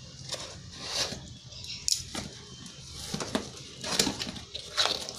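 Craft knife slitting open a cardboard box, then the box being handled and opened: scattered scrapes, clicks and rustles of cardboard.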